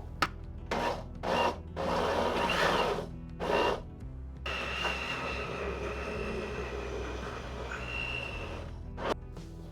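Soft background music under handling noises: a few short scrapes or rubs in the first seconds, then a steady hiss for about four seconds, and a short sharp sound near the end.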